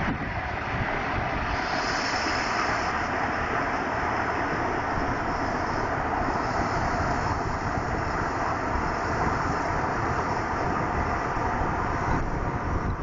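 Steady rushing wind buffeting the microphone in a snowstorm, with uneven gusty rumbling underneath.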